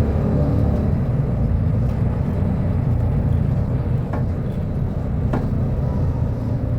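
Diesel engine of a Mercedes-Benz O500U city bus running steadily with a low rumble, with two faint clicks a little past halfway.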